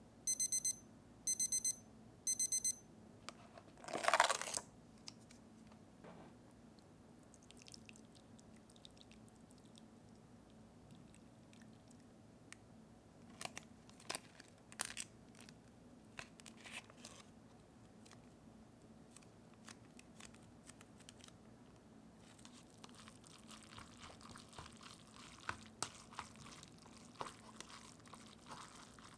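Three short electronic beeps from a kitchen appliance, then a brief loud noisy rush and scattered light clicks and taps. From about three-quarters of the way in, crisp crunching of someone eating noodles.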